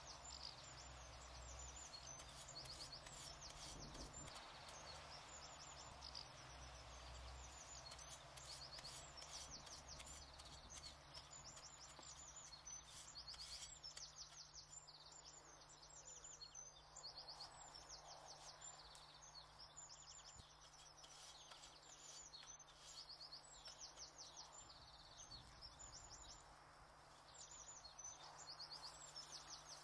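Faint outdoor ambience: small birds chirping in quick repeated trills throughout, over a low steady background hum.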